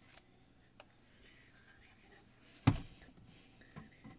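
A long screwdriver being handled against a wooden baseboard: one sharp knock about two and a half seconds in, then a few light clicks as its tip is set into a mounting screw on a circuit board.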